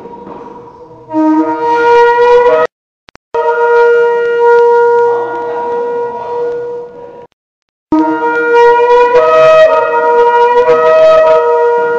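Shofar blown in long blasts on one steady, strong note, broken by two short silences. Two of the blasts open with a brief lower note before jumping up to the main pitch, and the last one wavers between two notes.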